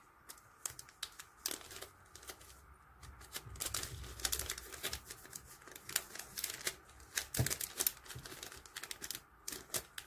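Thin clear self-seal plastic bag crinkling as a squishy is worked into it by hand: many short crackles and clicks, busiest in the middle.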